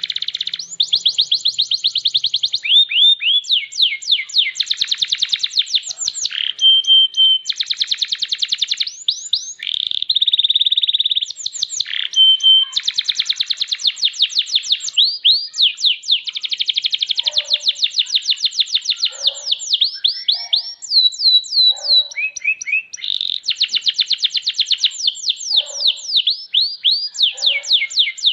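Domestic canary singing a long, fast song: rapid runs of repeated high notes and falling sweeps, with a few held whistles and only brief pauses.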